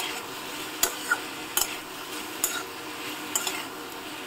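Spatula stirring and scraping vegetables and spice paste frying in a pan, with a steady sizzle and a sharp knock of the spatula on the pan roughly every second.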